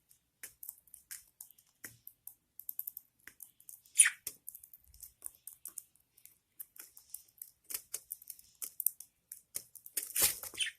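Budgerigar hen and chicks moving in the nest box: many small irregular clicks and scratches, with one short squeak falling in pitch about four seconds in and a louder scraping rustle near the end.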